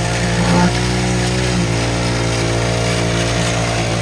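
Heavy engine running steadily at raised revs, powering the concrete pump that pushes concrete out through the hose.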